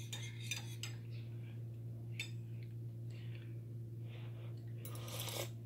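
A few faint clicks of a metal spoon against a ceramic coffee mug as the stirring stops and the spoon is lifted out and set aside, with a brief louder clatter near the end. A steady low hum runs underneath.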